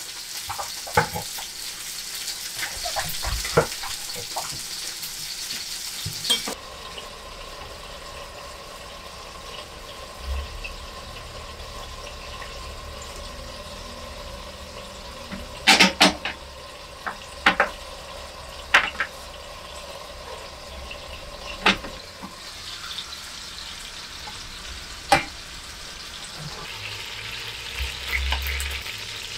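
Food sizzling in a frying pan, with knocks and clinks of utensils and cookware. About six seconds in the sizzle drops to a quieter, steady cooking sound with the lid on, broken now and then by sharp clatters.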